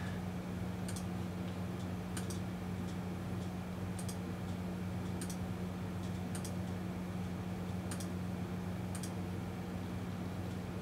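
Computer clicks, about one a second and not quite evenly spaced, as a photo slideshow is stepped through, over a steady low electrical hum.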